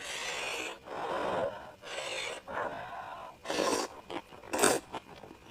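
A person slurping noodles in a string of about six noisy slurps, the last two short and sharp.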